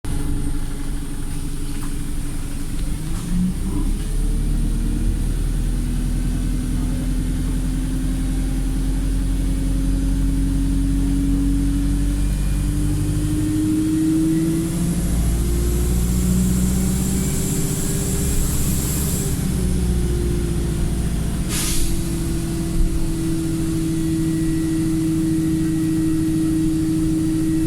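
Wright StreetLite single-deck bus heard on board, its diesel engine running and rising and falling in pitch as it pulls and changes gear, with a steady low rumble. A brief sharp hiss of air comes late on, the bus's air system sneezing. The bus is in limp mode and struggling.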